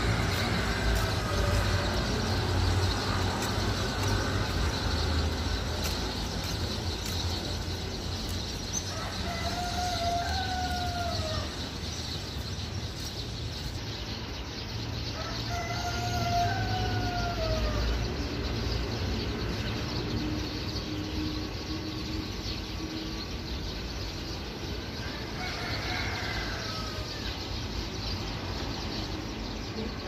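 Wild drongo calling from its perch: four separate whistled calls, each arching up then down in pitch, spaced several seconds apart, over a steady low background rumble.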